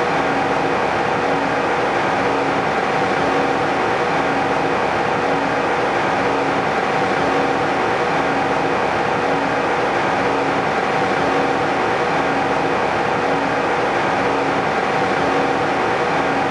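Steady flight-deck noise of an Airbus A320-214 climbing out: an even rush of air over the cockpit with a constant hum underneath.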